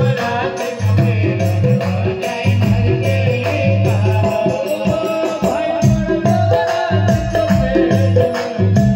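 Music with a steady beat: a repeating bass line under held melody notes, with a shaker-like percussion keeping time.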